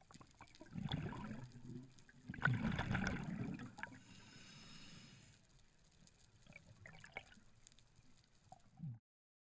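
Water gurgling and sloshing around an underwater camera, in two loud bursts in the first four seconds, then fainter hiss and small clicks.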